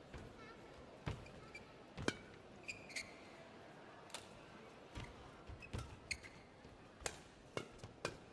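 Badminton rally: rackets striking the shuttlecock with sharp cracks roughly once a second, and shoes squeaking briefly on the court mat between strokes.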